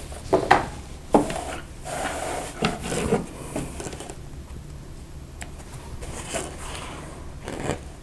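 Quilt fabric being shifted and rubbed at the sewing machine's presser foot, with a few light clicks as the thread is cut; the machine itself is not stitching.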